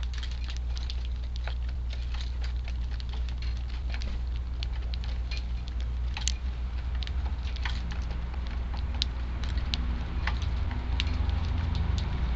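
Strong wind buffeting the microphone as a steady low rumble, rising a little near the end, over many small sharp taps and clicks of sparrows pecking at food.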